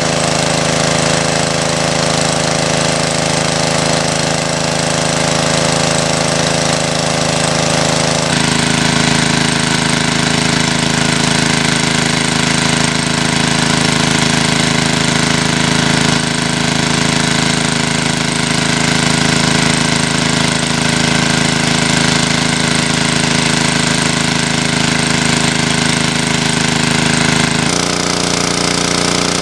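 A small engine running steadily at a constant speed, with a rapid, even chugging. Its pitch steps to a new steady note about eight seconds in and again near the end.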